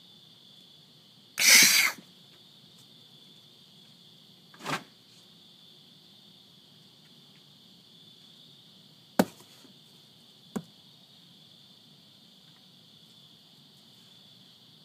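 Steady chirring of night crickets, broken by a loud, short rush of noise about a second and a half in and a weaker one a few seconds later. Then come two sharp knocks on the wooden deck, a second and a half apart.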